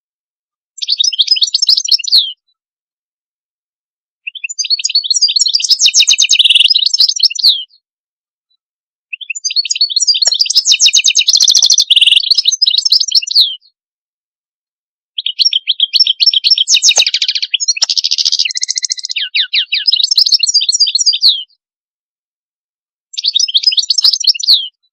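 European goldfinch singing: five high-pitched phrases of rapid twittering trills, each one to six seconds long, separated by silent gaps.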